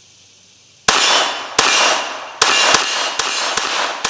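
Glock 44 .22 LR pistol firing about seven shots in quick, uneven succession starting about a second in, each crack trailing off over about half a second.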